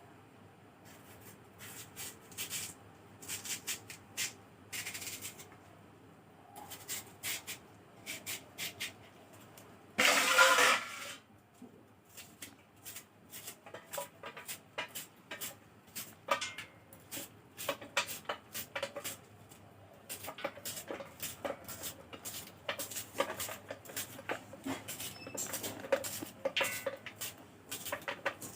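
A blade cutting through giant taro (maan kochu), with irregular taps and clicks of the cuts. One louder, noisy burst lasting under a second comes about ten seconds in.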